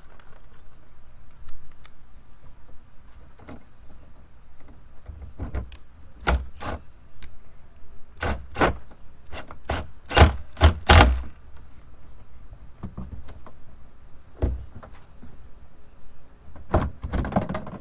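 Irregular knocks and clunks of outfitting parts being handled and fitted into a plastic whitewater kayak, loudest in a quick run of thuds about ten seconds in, with a brief scrape near the end.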